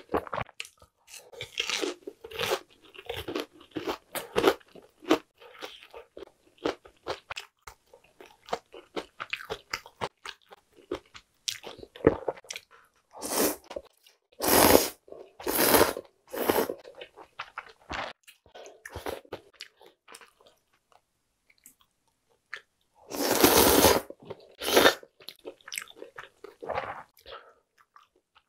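Close-miked crunching and chewing of crispy deep-fried food for the first several seconds, followed by loud slurps of cold buckwheat soba noodles: a few short slurps in the middle and one long slurp about two-thirds of the way through.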